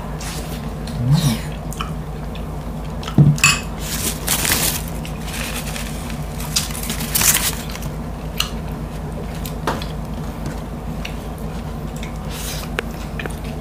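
Close-miked mukbang eating sounds of crispy roast lechon: chewing and handling the pork by hand, with scattered clicks and light clinks and a few brief crackly bursts, over a steady low hum.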